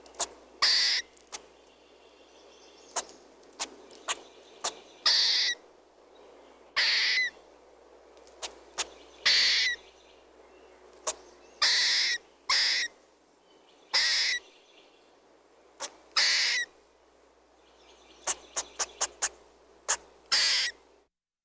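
Squirrel chirping: a string of sharp calls, some drawn out for about half a second and others short clicks, coming every second or two at irregular gaps, with a quick run of clicks near the end before it stops.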